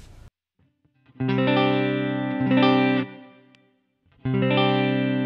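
Clean electric guitar, a Fender American Standard Stratocaster on its neck pickup, played through an amp-simulator pedal. About a second in, a chord is struck and changes once before fading out. A new chord rings out near the end.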